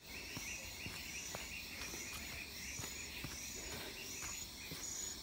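Jungle insects calling in a steady pulsing chorus, high-pitched, with faint footsteps on a leaf-littered trail.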